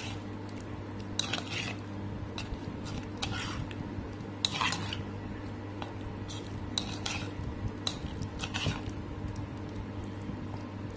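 Steel spoon stirring raw anchovies through a thick, wet spiced batter in a bowl: irregular scrapes and squelches of the spoon against the bowl.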